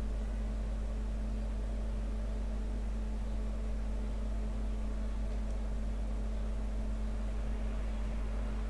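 Steady low hum with a faint hiss, unchanging throughout: background noise of the home recording setup, with no other sound.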